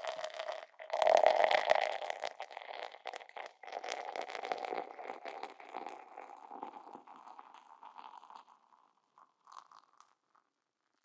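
Beer poured into a glass: a short break, then a loud gush of pouring about a second in. After that the foam fizzes and crackles with many tiny pops, thinning and dying away over several seconds.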